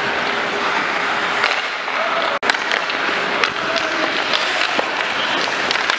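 Hockey skates scraping across rink ice under a steady hiss, with scattered sharp clacks of sticks and puck. The sound cuts out for an instant about two and a half seconds in.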